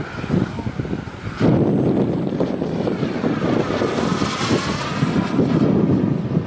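Miniature turbine engine of a radio-controlled model jet making a fast pass: a steady jet rush that gets louder about a second and a half in, then sweeps in pitch as it goes by.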